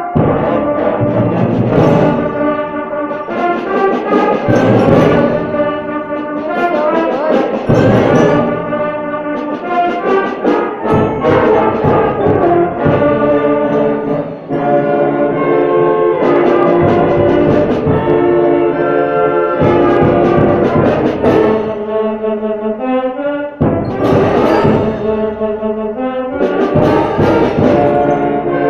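Loud brass-like horn tones, several pitches sounding together, holding, swelling and sliding between notes for the whole stretch: the unexplained strange noise heard at the school.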